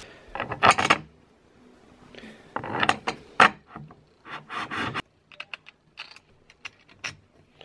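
Screws, washers and twist nuts being fitted to mount fence faces on an aluminum router-table fence extrusion. Three short bouts of scraping and rattling handling noise give way to a quick run of small clicks over the last couple of seconds.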